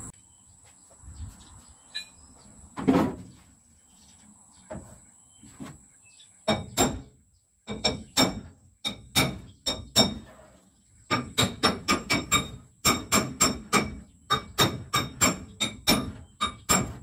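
Panel beating on a Toyota Celica's sheet-metal bonnet: a hammer taps on a tool held against the panel, giving sharp ringing metal taps. After a few scattered knocks, the taps start about six seconds in and quicken to about three a second near the end, as the bonnet's body lines are knocked back up.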